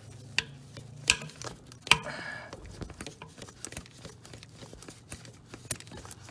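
Hand tools and metal parts clicking and clinking in irregular sharp taps while a power steering hose and clamp are being worked loose, with a short rustle about two seconds in.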